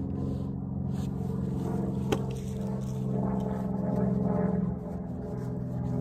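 Ambient background music: a low sustained drone of layered tones, with a single sharp click about two seconds in.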